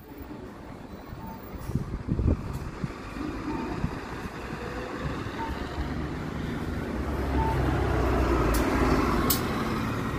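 Kanachu city bus pulling around and passing close by, its engine rumble building as it nears and loudest as it goes past. Faint short beeps come about every two seconds, and there are two sharp clicks near the end.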